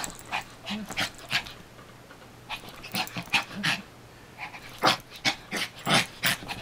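A small dog making short, breathy sounds in quick, irregular succession while play-fighting with a cat, with two louder ones about five and six seconds in.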